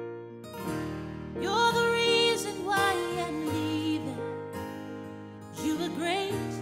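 Gospel song playing as background music: a sung melody over sustained keyboard chords.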